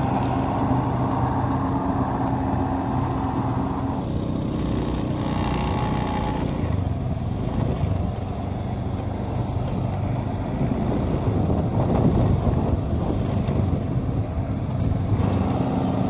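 Diesel engine of a Yanmar AW70V crawler combine harvester running steadily as the machine travels. About four seconds in, the steady engine note gives way to a rougher, noisier vehicle sound, and the steady engine note returns near the end.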